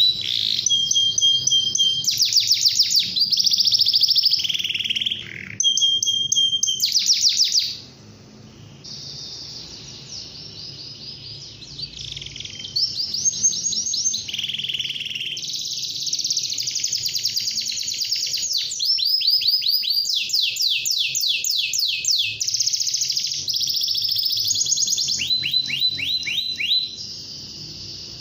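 Domestic canary singing a long, fast song made of rapid trills and rolls of repeated high notes. The song drops to a quieter passage about eight seconds in, then builds back up.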